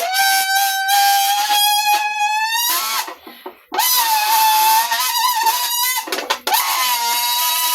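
A person making a loud, high-pitched sound with the voice: long held notes, each ending in a quick upward bend in pitch, broken by short pauses about three and six seconds in.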